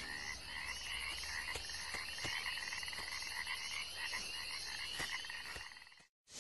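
Chorus of frogs calling in fast repeating pulses, fading out shortly before the end.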